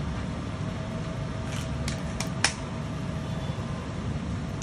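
Steady low background hum, with a few sharp clicks near the middle, the loudest about halfway through.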